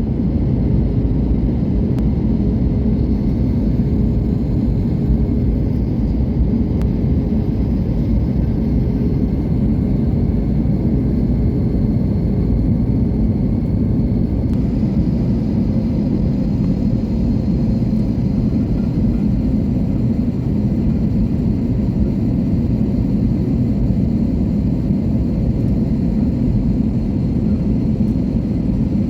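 Steady loud rumble of an airliner's engines and airflow, heard from inside the passenger cabin. A faint steady tone runs under it for about the first half.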